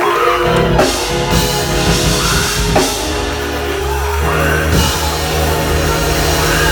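Live band music playing steadily, with drums and sustained chords.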